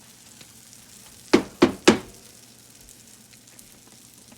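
Pancake batter sizzling faintly on a hot griddle, with three quick, loud sharp sounds in a row about a second and a half in.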